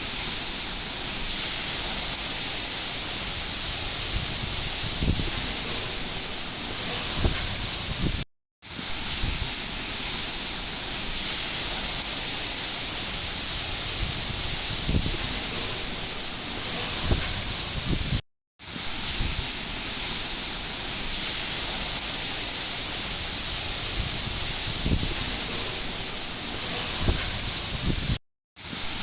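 Steady hiss of heavy rain, with faint low knocks of drops striking a surface. It is a short recording looped, cutting to silence for a moment about every ten seconds.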